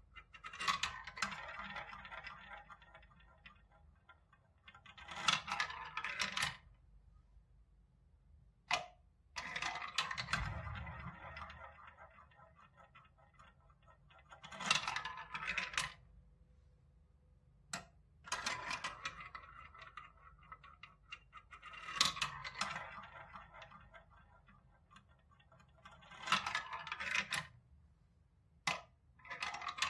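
Small balls rolling and rattling through a plastic marble run's tubes and spiral funnels, one ball after another, about four runs in all. Each run ends with sharp clicks as the ball drops and knocks into the row of balls in the collecting tray.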